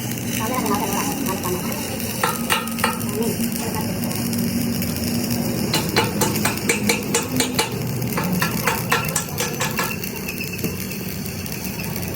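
Repeated sharp knocks from work on a tractor wheel rim, a short run about two seconds in and a longer, evenly spaced run from about six seconds, over a steady low hum.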